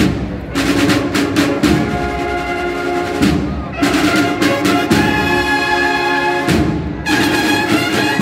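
Spanish cornet-and-drum band (banda de cornetas y tambores) playing a Holy Week processional march: bugle-like cornetas sound held, stacked phrases over snare drums, with sharp drum strokes and rolls between the phrases.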